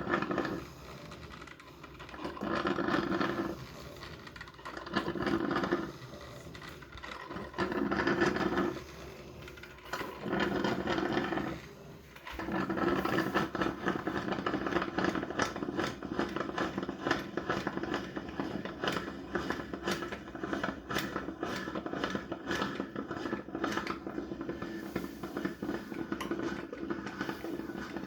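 Crux Artisan Series coffee maker running with a mechanical whir: about five short bursts roughly two seconds apart, then running continuously from about halfway in, with a rapid crackle of small clicks through it.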